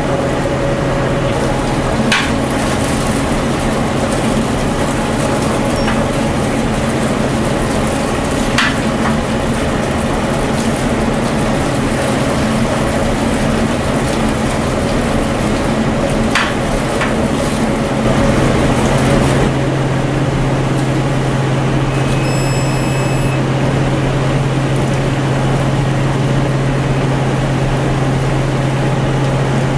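Steady drone of a research ship's engines and deck machinery, with a constant low hum that gets louder about eighteen seconds in. A few sharp metallic knocks come from the steel sediment grab being handled.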